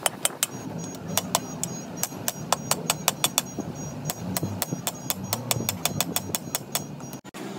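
A run of sharp knocks, about four a second and fairly even, that stops abruptly near the end.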